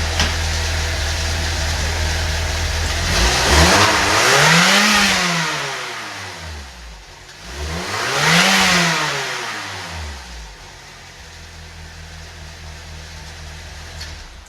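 Saab B207R 2.0-litre turbocharged four-cylinder engine, just back together after an exhaust valve replacement, idling steadily, then revved up and let fall back twice, each rev lasting a couple of seconds, before settling back to a quieter idle.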